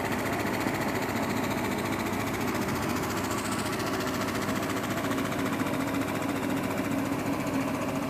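CareFusion 3100A high-frequency oscillating ventilator running, its piston oscillating back and forth in a steady, rapid mechanical buzz.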